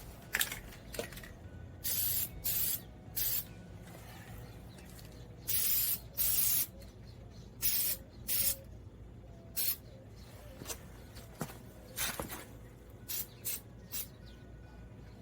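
Aerosol spray paint can sprayed in about a dozen short bursts of hiss, some brief and some nearly a second long, laying on a second coat.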